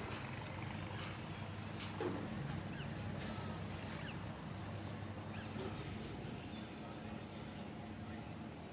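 Outdoor ambience: short, faint bird chirps over a steady low hum, with one soft knock about two seconds in.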